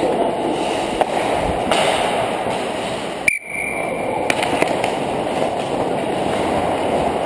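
Ice hockey skating heard through a helmet-mounted camera: a steady scraping rumble of skate blades on ice and rushing air, with a few sharp clicks of sticks or puck. The sound cuts out for a moment about halfway, followed by a faint high tone lasting about a second.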